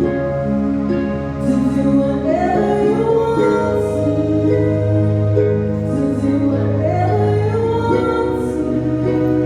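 Slow worship song: a sung melody over sustained bass notes and held chords.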